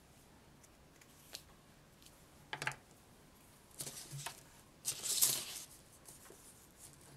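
Hands handling bent armature wire and a printed paper sheet on a wooden tabletop: a few short rustles and scrapes of paper and wire, the longest and loudest a little past five seconds in.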